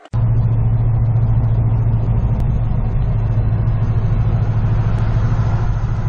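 Car engine running as the car drives along a road, a loud, steady low drone with road noise above it.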